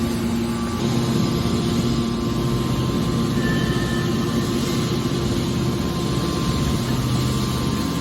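Automatic metal baler's hydraulic power unit running steadily: a continuous machine hum with a rushing noise, a low hum tone joining about a second in.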